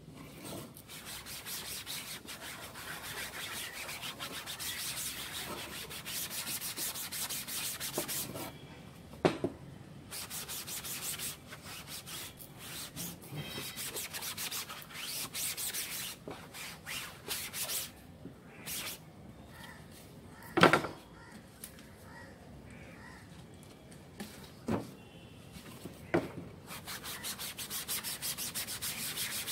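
A cloth wad scrubbing the mesh of a wooden screen-printing frame in quick back-and-forth strokes, cleaning off ink, with a couple of short pauses. A few sharp knocks stand out, the loudest about two-thirds of the way through.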